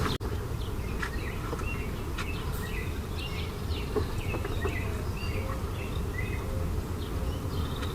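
Small birds chirping and calling over and over, short high notes over a steady low hum.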